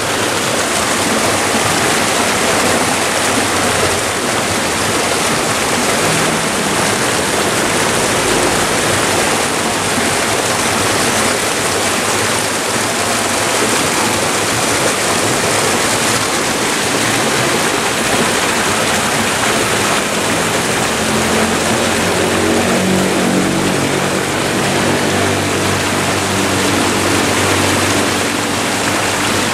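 River water rushing and splashing steadily over rocks at a small cascade.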